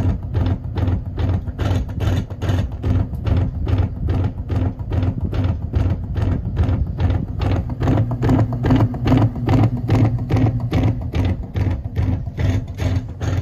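Emerson friction-drive ceiling fan with custom-cut 48-inch blades running, a steady hum under an even knock about three or four times a second. The knock comes from the fan wobbling out of balance.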